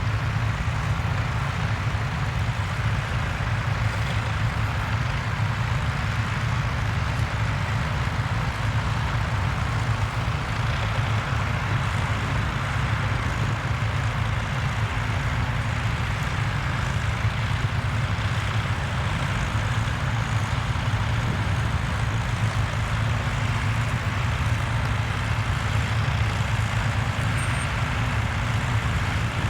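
Tractor engine running steadily at a constant speed, with no change in pace.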